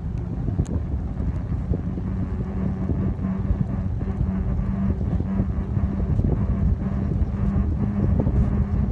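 Wind buffeting the microphone and the tyres rumbling on asphalt while riding a bicycle, with a steady low hum underneath.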